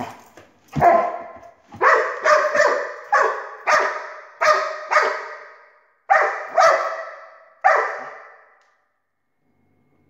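Dog barking at a laser pointer dot it is chasing: about a dozen sharp barks in quick runs, each trailing off with room echo, stopping about two seconds before the end.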